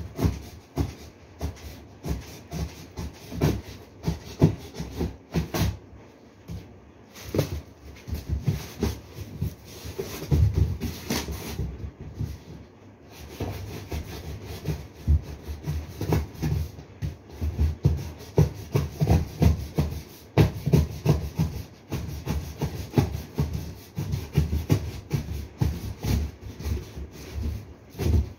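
Plastic water bottles and their clear plastic wrapping being handled and pressed, giving a dense, irregular run of rubbing, scraping and light knocks.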